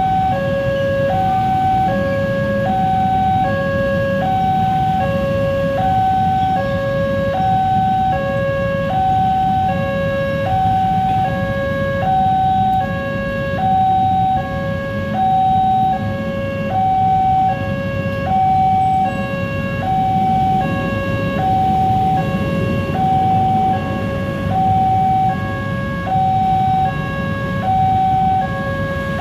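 Railroad level-crossing warning alarm sounding an electronic two-tone signal that alternates evenly between a lower and a higher tone, each held just under a second: the crossing is closed for an approaching train. Underneath is a low rumble of motorcycle engines idling in the queue.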